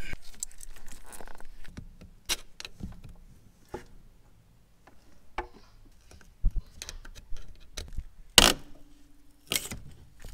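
Scattered metallic clicks and clinks as the rusty gear-shift cable linkage of a Mitsubishi Evo 8 is worked loose by hand and tool, with a couple of louder sharp knocks near the end.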